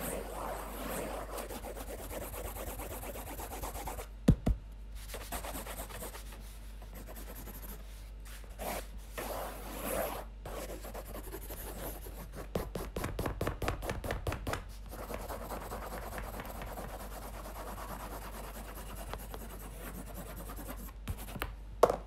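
Low rubbing and scuffing noise with a sharp click about four seconds in, a quick run of small clicks a little past the middle, and another sharp click near the end.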